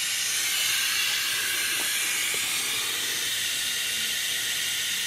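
Steady hiss of hot water spraying without a break from a pressurised hose spray tip into a bucket, fed through a 2000-watt electric inline heater.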